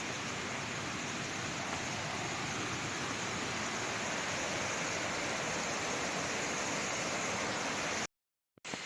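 Steady rush of a waterfall's falling water, cutting out abruptly for about half a second near the end before resuming.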